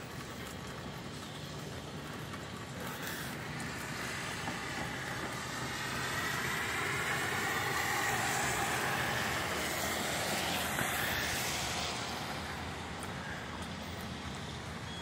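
A car passing on a wet road: the hiss of its tyres on the wet pavement swells to its loudest about halfway through and fades away again, over a steady background hiss.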